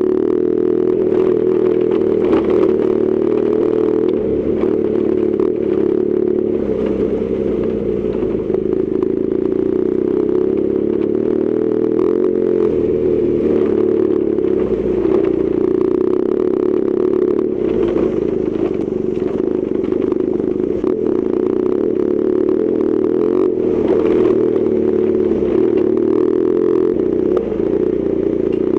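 BMW R1200GS Adventure's boxer-twin engine running at a fairly steady pace while riding a gravel forest road, its pitch wavering slightly, with stones and tyres clattering and scraping underneath.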